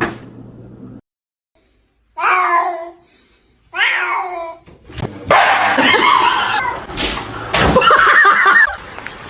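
A cat meowing twice, each call falling in pitch, then a louder stretch of noisy, wavering calls.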